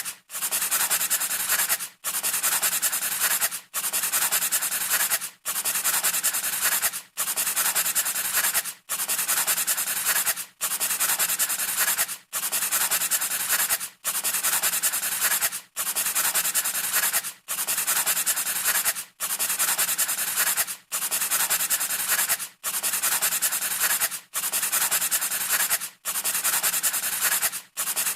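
Pencil scratching across paper in long, even strokes, about one every 1.7 seconds with a short break between them, repeating like a loop.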